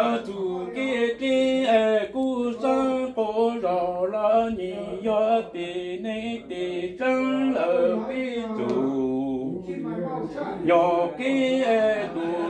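A man singing Hmong lug txaj unaccompanied: a chanted, sung poem in long, wavering held notes, phrase after phrase with short breaks for breath.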